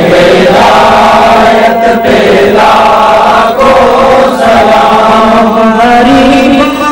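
Men's voices chanting an Urdu salam, a devotional salutation to the Prophet, together in a loud, continuous recitation. Near the end a single clearer, wavering melody comes in.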